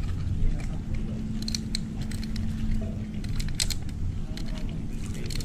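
Light plastic clicks and snaps of a fish-grip tool being handled while unhooking a small fish, in short clusters about a second and a half in, near four seconds and at the very end, over a low steady rumble.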